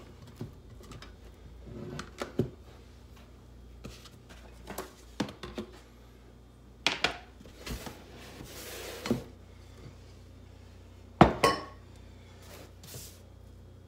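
A glass mixing bowl being handled on a countertop as bread dough is scraped out of it by hand: scattered light knocks and clinks, brief soft rubbing, and one louder knock near the end as the bowl is set aside.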